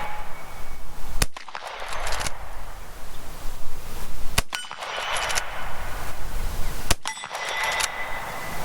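Three shots from a Marlin 1894 CSBL lever-action rifle firing .38 Special, about two and a half seconds apart. Each shot is followed by about a second of metallic ringing.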